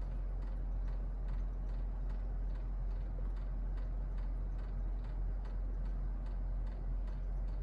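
Faint, evenly spaced ticking, about two or three ticks a second, over a steady low electrical hum.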